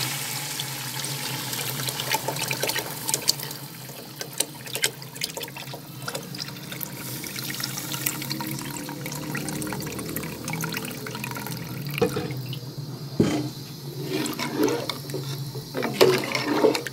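Beef trotter stock poured into a hot pot of fried trotters and masala, splashing in loudly for the first few seconds. The broth then crackles and bubbles as it heats. A steel spoon knocks against the pot a few times near the end.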